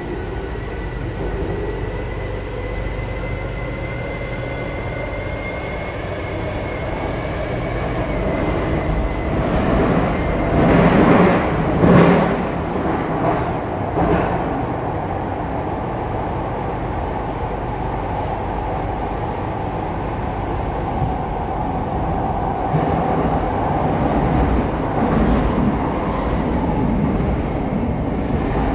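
A C751B metro train with PMSM traction motors pulling out of a station and running into the tunnel, heard from inside the car. A thin motor whine rises slowly in pitch as it accelerates, a louder rush of wheel and track noise swells about ten to fourteen seconds in, and steady running noise follows.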